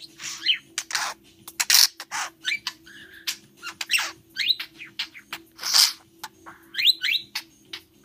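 Budgerigar nibbling crisp romaine lettuce held in fingers: irregular short, sharp crunching and tearing sounds, several a second, mixed with brief high chirps.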